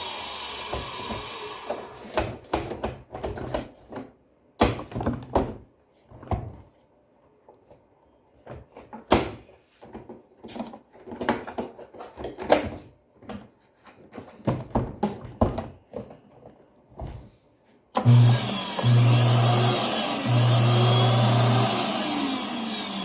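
Scattered knocks and clicks of hard parts and tools being handled, with quiet gaps between them. About three quarters in, loud music starts suddenly with a pulsing bass.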